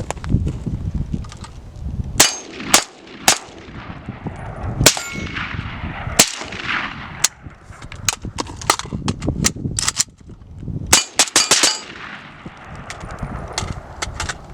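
A string of AK rifle shots at steel plates, irregularly spaced with a quick run of several shots near the end; some hits leave the steel ringing. Wind rumbles on the microphone underneath.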